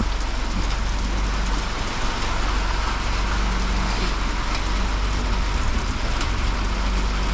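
Heavy rain falling steadily, an even hiss with a low rumble underneath.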